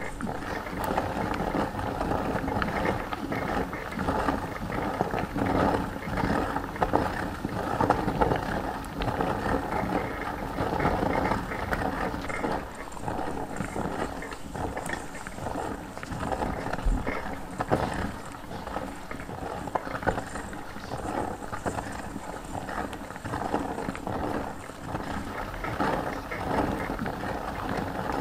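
Hand-cranked meat grinder being turned steadily, its auger forcing marshmallows through the cutting plate, with a continuous run of small irregular clicks and creaks from the turning mechanism.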